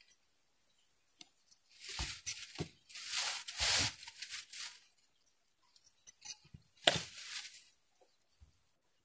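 Handling noise from fingers tapping a tablet and handling a small speaker's clear plastic casing: a few light clicks and clinks, with short rubbing noises about three seconds in and again about seven seconds in.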